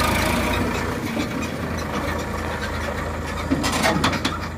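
Sonalika DI 60 tractor's diesel engine running steadily as it pulls a loaded trolley, with a short burst of loud rattling clatter about three and a half seconds in.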